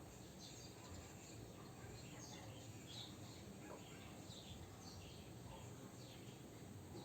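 Near silence: low room hum with faint, scattered short high chirps.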